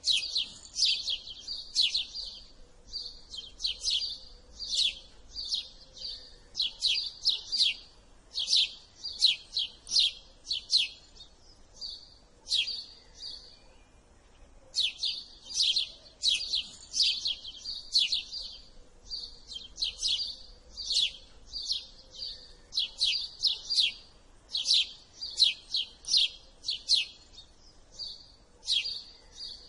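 House sparrow chirping: quick runs of short, sharp cheep notes, several a second, with a pause of about two seconds around the middle.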